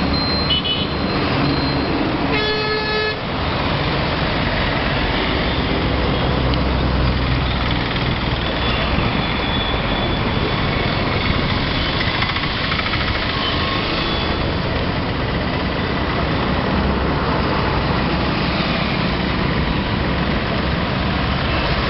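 Street traffic noise from engines and tyres. A vehicle horn sounds once, briefly, about two and a half seconds in.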